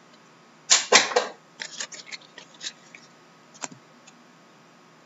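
Hockey trading cards handled by hand: a loud swish of cards sliding against each other about a second in, then a quick run of short flicks and taps as cards are shuffled and set down on the table.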